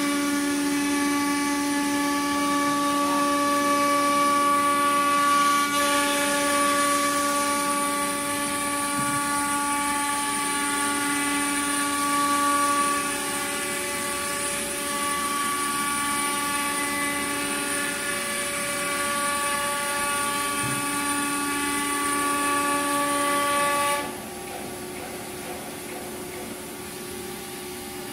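Automatic tool-change CNC wood router running with a steady, high, many-toned machine whine. About 24 seconds in, the higher part of the whine cuts off and the sound drops sharply in level, while a lower steady hum carries on.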